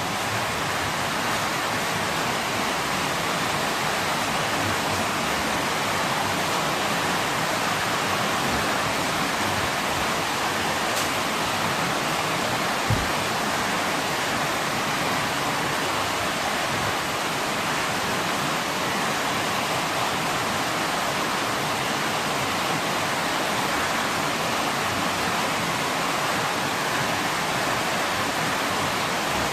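Heavy rain pouring down steadily: a dense, even hiss. One short low thump about 13 seconds in.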